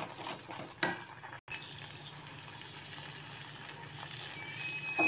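Thickening khoya (milk with milk powder and ghee) sizzling in a non-stick pan on high flame while a silicone spatula stirs and scrapes it, with one sharp knock of the spatula against the pan about a second in.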